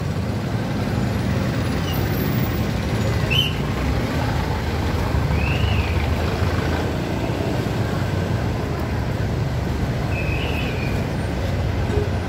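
City street traffic: a steady rumble of passing vehicles and engines, with a few short high squeaks mixed in.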